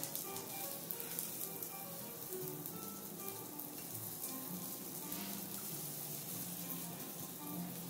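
Shiitake mushrooms and pumpkin sizzling on a hot teppanyaki steel griddle, with a few light taps and scrapes of a knife and spatula on the steel. Soft background music plays under it.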